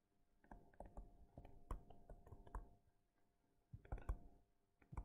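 Faint, irregular clicks and taps of a pen on a screen as words are handwritten, in clusters with a short pause near three seconds and a louder cluster about four seconds in.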